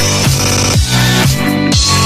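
Background music with a steady electronic dance beat, about two beats a second.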